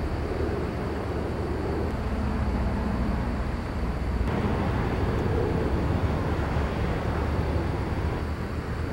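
Steady low rumbling background noise with no distinct events; its character shifts slightly about four seconds in.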